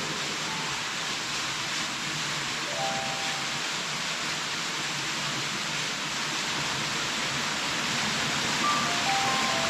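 Waterfall pouring steadily, an even rush of falling water. A few faint, short mallet-like music notes sound about half a second in, near three seconds, and again near the end.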